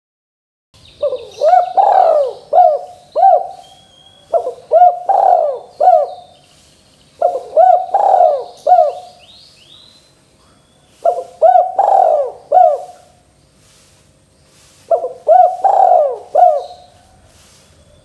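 Spotted dove cooing: five phrases of four or five coos each, repeated about every three to four seconds, starting after a brief silence. Faint high chirps of small birds sound behind the first few phrases.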